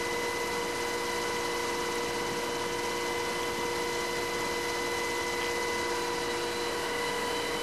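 Steady cabin noise of an HH-60G Pave Hawk helicopter in flight: an even rushing hiss with several steady tones held throughout.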